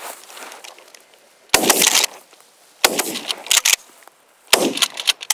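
Dry grass and brush crackling and crunching close by as a boot and leg shift through it, in three loud bursts of rapid crackles.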